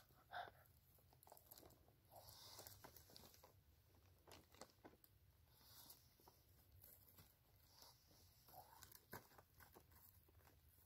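Near silence, with faint scattered rustling and a few small clicks, the strongest just after the start and near the end.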